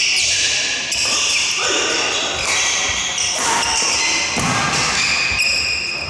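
A badminton rally: rackets striking the shuttlecock about once a second, with shoes squeaking on the wooden court floor.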